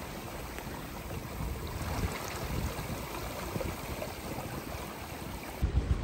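Small river tour boat under way: a steady rush of water and hiss, with a low, uneven rumble that jumps suddenly louder near the end.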